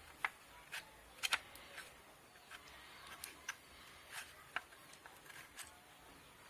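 Light clicks and taps, about a dozen at uneven intervals, as a hard drive is handled and fitted into a DVR's metal case.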